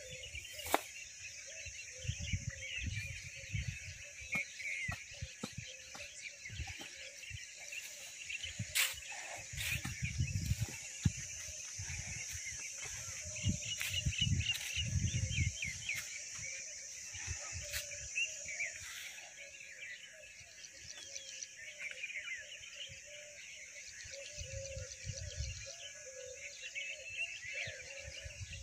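Morning bird chorus, many small birds chirping, over a steady high insect drone, with intermittent low rumbles on the microphone.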